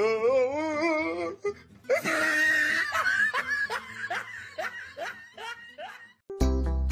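A person laughing hard: a wavering, drawn-out laugh, then a burst of loud laughter breaking into a run of short bursts about two a second. Music starts abruptly about six and a half seconds in.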